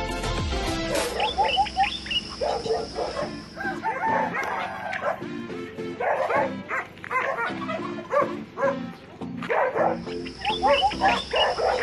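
A dog barking and yapping in many short, sharp calls, some in quick runs of about four, over background music.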